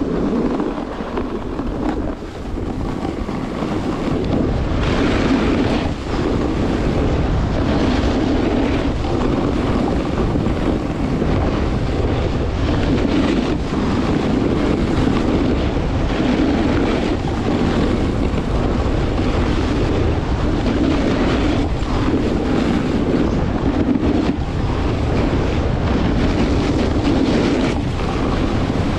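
Wind rushing over the microphone of a skier's camera on a downhill run, with skis scraping over firm, groomed snow; the rush swells and eases every second or two with the turns.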